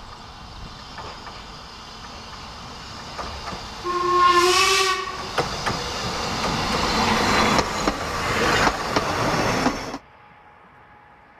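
Narrow-gauge steam locomotive sounding one whistle about a second long as it approaches, then the chuffing and hiss of its steam exhaust as it comes close. The sound cuts off suddenly near the end.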